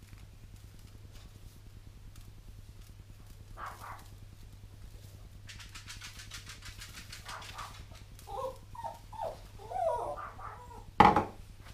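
A dog whining in short, wavering cries for about two seconds past the middle. Near the end comes a single sharp knock, the loudest sound. A faint steady hum runs underneath.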